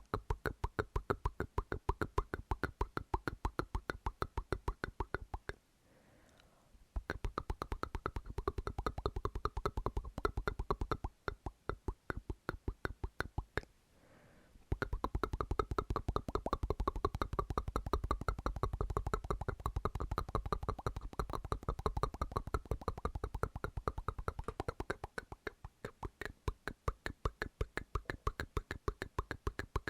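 ASMR mouth sounds: rapid, rhythmic pops made with the lips and tongue, about five a second, with two short breaks.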